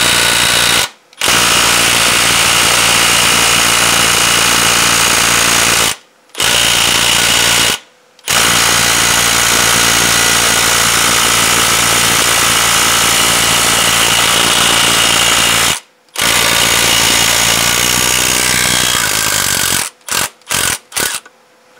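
Milwaukee M12 FUEL half-inch compact impact wrench hammering on a very tight truck wheel nut, trying to crack it loose. It runs in long bursts of several seconds with four brief pauses, then gives a few short bursts near the end before stopping.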